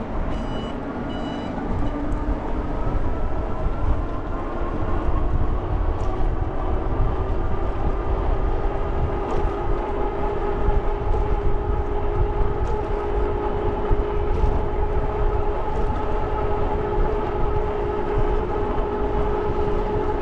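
E-bike hub motor whining steadily under way, its pitch rising a little over the first few seconds and then holding, over a low wind rumble on the microphone. A repeating high electronic beep at the start stops about a second and a half in.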